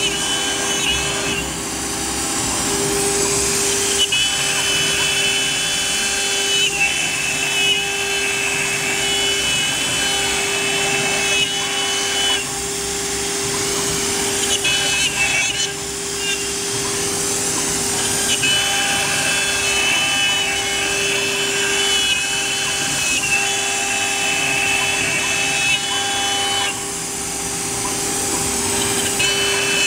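AccTek AKM-1325 CNC router's spindle running with a steady whine while its bit engraves grooves into MDF, with a hiss of cutting. A set of higher-pitched tones over it drops out for a second or two every few seconds.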